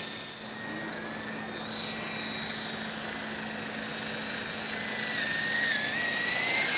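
Small Silverlit remote-control toy helicopter hovering low, its electric motors and rotors giving a steady whine that wavers slightly in pitch. It grows louder near the end.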